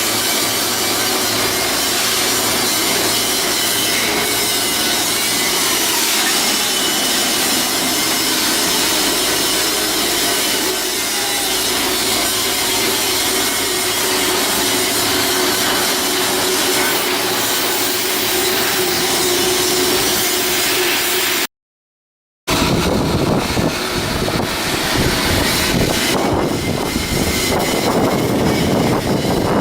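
Steady, loud shipyard work noise from power tools on steel. About two thirds of the way through it cuts off for a moment and gives way to a rougher, more uneven noise.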